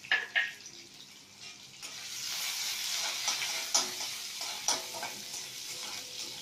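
Ginger, garlic and curry-leaf slices sizzling in a little hot oil in a metal kadai on high flame, stirred with a metal spatula that scrapes against the pan. Two sharp metal clinks come near the start. The sizzle grows louder about two seconds in.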